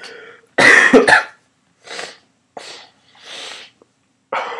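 A person coughing: a loud run of coughs about half a second in, quieter coughs over the next few seconds, and another strong cough near the end.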